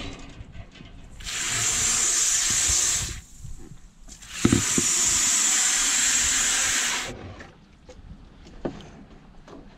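Water spraying hard in two bursts, about two and three seconds long with a short break between, a knock sounding as the second burst starts.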